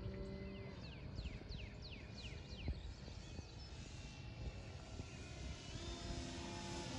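Faint steady hum of a giant-scale RC Cessna Bird Dog's motor and propeller flying at a distance, fading out under a second in and returning near the end, over a low wind rumble. Between about one and three seconds in, a bird gives a quick run of about seven short falling whistled notes.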